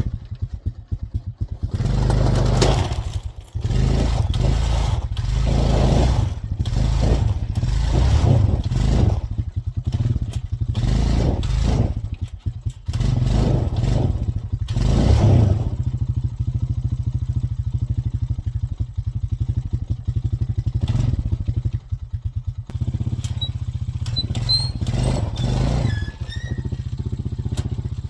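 ATV engine running under load, revved hard in a string of surges for the first half, then running more steadily.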